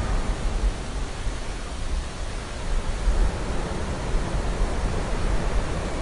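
Steady ocean ambience: a continuous wash of water noise, heaviest and deepest in the low end, swelling slightly without distinct breaking waves.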